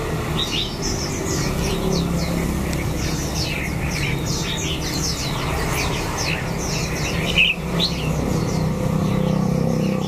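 Many caged red-whiskered bulbuls chirping together, a dense chatter of short quick calls, over a steady low hum.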